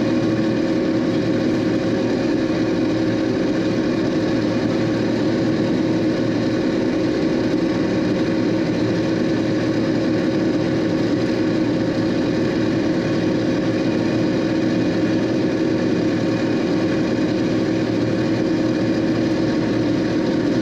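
John Deere combine running steadily while harvesting corn: a constant engine and machinery drone with a steady hum that holds at one pitch throughout.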